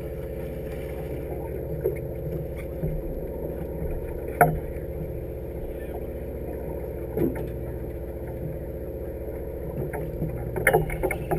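Steady hum of a sportfishing boat's engine running, with a few scattered knocks on deck: a sharp one about four and a half seconds in and a quick cluster near the end.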